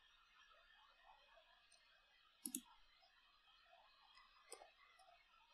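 Computer mouse clicks in near silence: one sharp click about halfway through and a fainter click near the end.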